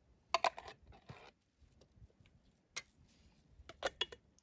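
A few short clinks and knocks of kitchenware, spaced irregularly, with the loudest cluster about a third of a second in and a few more near the end, as canned chili is handled for heating.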